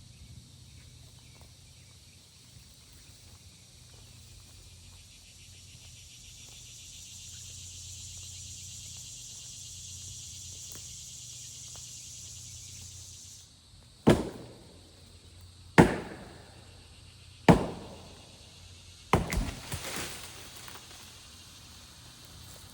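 A steady high hiss, then four heavy blows about one and a half seconds apart, each with a short ringing tail.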